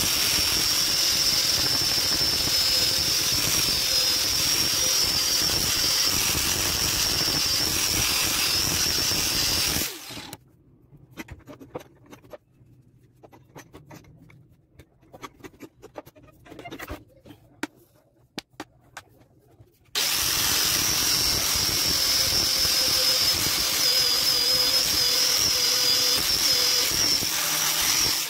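Angle grinder running with a high steady whine as its disc grinds the steel jaw of a rusty adjustable wrench held in a bench vise. It stops abruptly about a third of the way in, leaving scattered light clicks and knocks as the vise is adjusted, then starts again about two-thirds of the way in.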